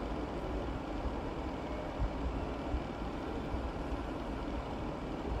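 A steady low rumble of background noise, with a few faint knocks of a kitchen knife on a plastic cutting board as carrots are cut into julienne strips.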